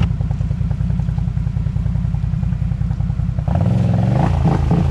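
ATV engine running with a steady low pulsing beat, then revving up with a wavering pitch about three and a half seconds in.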